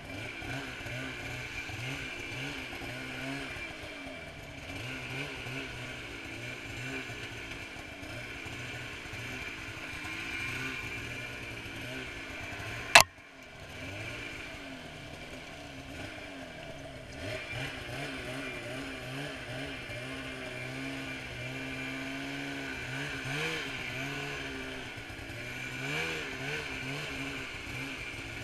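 2017 Polaris Switchback Assault 144 snowmobile's two-stroke engine, fitted with a Bikeman Velocity trail-can exhaust, running under way with its pitch rising and falling as the throttle is worked. A single sharp click about halfway through.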